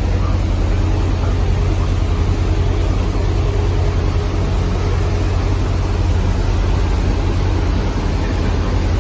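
Cruise boat's engine running with a steady low drone and an even hiss over it.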